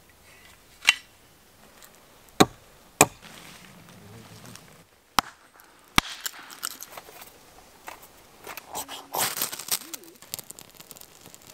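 Hatchet chopping and splitting wood: a handful of sharp, separate knocks, one about six seconds in as the blade bites into a billet on a chopping block. After it comes a stretch of scraping and rustling, loudest about nine seconds in.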